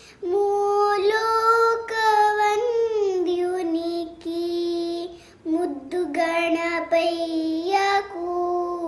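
A young girl singing a Carnatic devotional song in raga Sindhubhairavi unaccompanied, holding long drawn-out notes. The melody steps down about three seconds in, breaks for a breath around five seconds, then climbs again.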